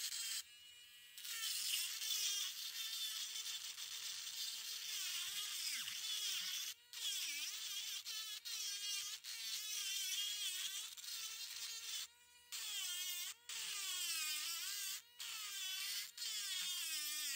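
Dremel rotary tool running at high speed with a thin bit grinding into fossil shell rock: a high whine whose pitch wavers and sags again and again as the bit bites, cutting out briefly several times.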